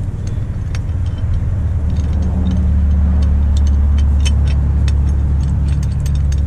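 A steady low rumble that grows louder about two seconds in, with scattered light metallic clicks and taps from a wrench working a fitting on a steel gas-pipe riser.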